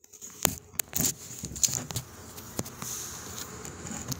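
A steady hiss of background noise with a few sharp clicks and taps scattered through it, of the kind made by handling a phone while a microphone is open.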